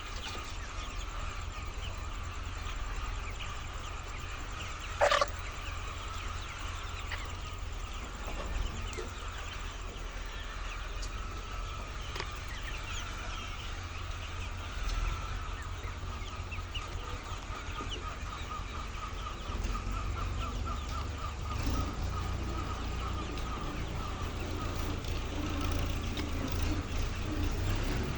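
A large flock of laying hens clucking and calling over one another, with a steady low hum underneath. About five seconds in there is one brief, sharp, loud sound.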